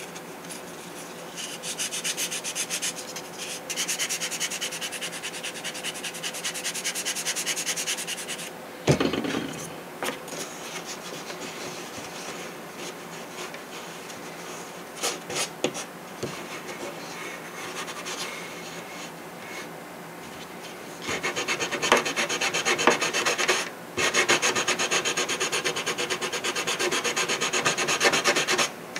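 Soft balsa being hand-sanded with 80-grit sandpaper on a sanding block: rapid scratchy back-and-forth strokes. They come in two spells, one in the first several seconds and one in the last eight seconds, with a single knock about nine seconds in and lighter, intermittent rubbing between.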